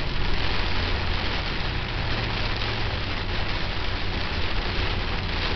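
Heavy rain hitting a moving vehicle, heard from inside the cab as a dense, steady hiss over a low engine and road drone.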